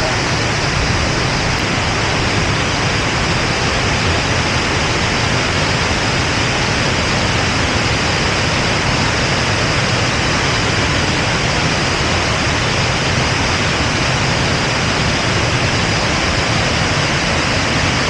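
Waterfall pouring over rock ledges: a steady, unbroken rush of falling water.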